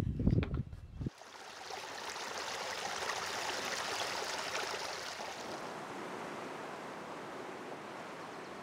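A small brook trickling and splashing over mossy rocks in little cascades, a steady rush of running water. It follows about a second of low rumbling at the start.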